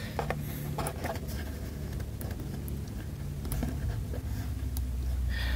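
Faint, scattered clicks and taps of fingers pressing small tactile push-button switches on a breadboard, over a low steady hum.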